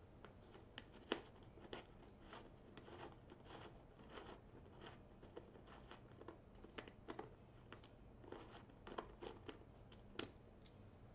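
Faint, irregular small clicks and scrapes of a 4 mm hex key turning screws out of the motorcycle's trunk, with fingers handling the screws.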